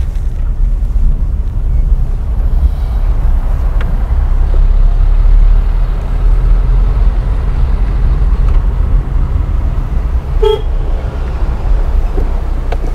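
Steady low rumble of a car's engine and tyres heard from inside the moving car, with one short horn toot about ten and a half seconds in.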